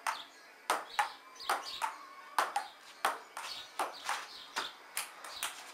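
Table tennis rally: the ball clicking back and forth off the paddles and the table top, a steady run of sharp taps, about two or three a second.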